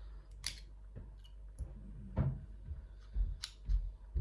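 Scattered small clicks and dull knocks of metal lock parts being handled and worked at: the stripped Chubb lever lock's case and its stump being tried for removal.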